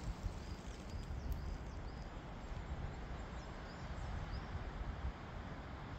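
Uneven low rumble of an outdoor handheld microphone, with a few faint, short, high chirps of small birds scattered through.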